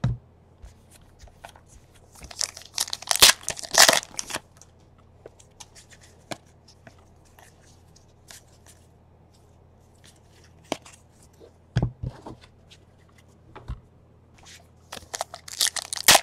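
Trading-card pack wrappers being torn open and crinkled by hand, with cards clicking and sliding as they are flipped through. There are two louder bursts of tearing and crinkling, about two to four seconds in and again near the end, with soft card clicks between.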